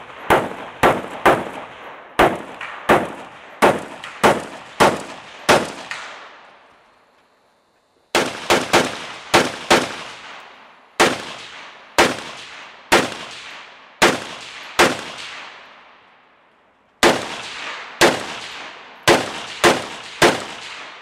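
AR-style semi-automatic rifle fired in quick strings of aimed shots, each shot sharp with a short fading echo. About ten shots come in the first six seconds, then a pause of about two seconds. A second string of about ten follows at a slowing pace, then another pause, and six more shots near the end.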